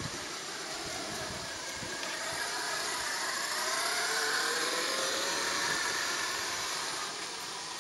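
Brushless electric motor and gear drive of an HPI Savage Flux HP radio-controlled monster truck whining, the pitch sliding up and down as it speeds up and slows, loudest around the middle.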